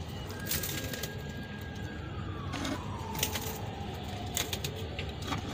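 Steady low background noise with scattered clicks, and a faint long tone that holds and then slowly falls in pitch over a few seconds.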